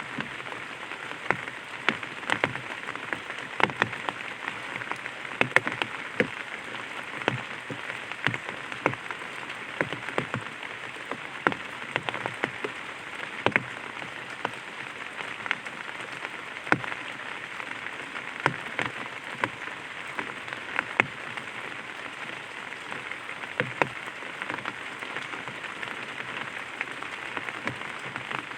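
Light rain falling on an umbrella: a steady hiss of rain with frequent, irregular sharp taps of single drops hitting the canopy.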